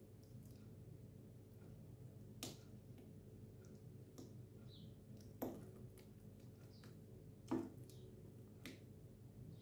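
A spoon stirring thick pumpkin batter in a ceramic bowl, mostly quiet, with scattered light clicks and three louder knocks of the spoon against the bowl, over a faint steady room hum.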